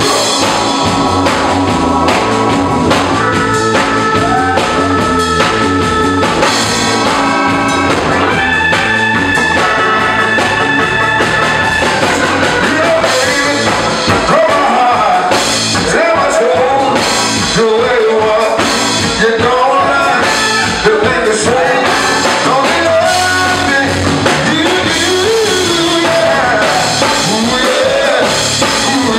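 Live rock band playing on drum kit, electric guitar and keyboard, with the lead vocal singing over it through most of the second half.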